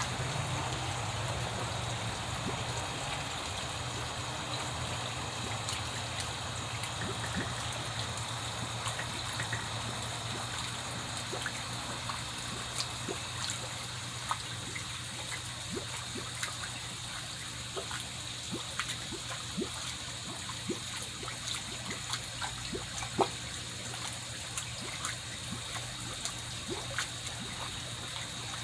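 Water trickling steadily into a koi pond or tank, with scattered small pops and clicks from baby koi feeding at the surface, more frequent in the second half.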